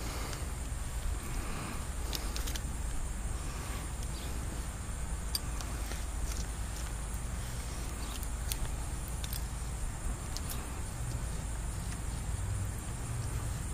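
Steady low outdoor rumble with scattered faint, short clicks throughout.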